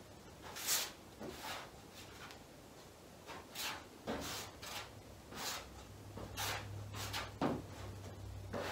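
Body filler spreader scraping fresh filler across a bare-metal truck hood: about a dozen short rasping strokes at an uneven pace.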